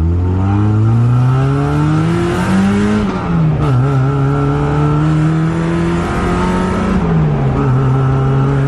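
Mazda NA Miata's four-cylinder engine heard from inside the car, revving up steadily for the first three seconds. Its pitch then drops sharply and it runs steadily, with a smaller rise and another step down about seven seconds in.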